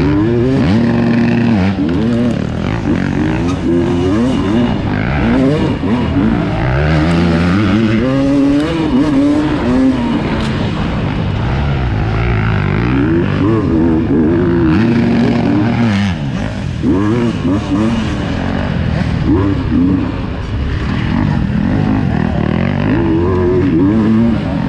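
Off-road dirt bike engine heard close up from the rider, revving up and falling back over and over as the throttle is worked through a wooded racing trail.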